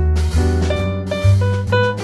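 Background instrumental music with a bass line, a steady beat and plucked, guitar-like melody notes.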